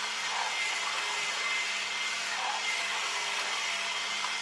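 Steady, even background hiss with a faint high whine, and a couple of faint small handling sounds as the plastic distributor parts are worked in the fingers.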